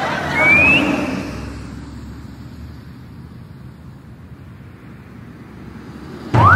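Motor vehicle road noise from two-wheelers riding along a road: loudest about half a second in, then fading to a low, steady rumble. A short rising whistle-like sound comes near the start, and a sudden loud rising sound breaks in at the very end.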